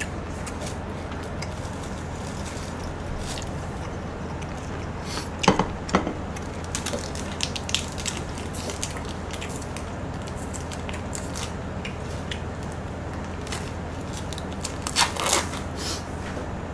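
Pork belly sizzling steadily on a grill pan, with a few sharp clicks and knocks about five to eight seconds in and again near the end.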